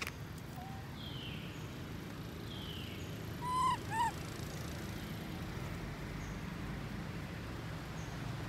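Baby macaque crying: two short, high-pitched arched calls in quick succession about three and a half seconds in, the loudest sounds here.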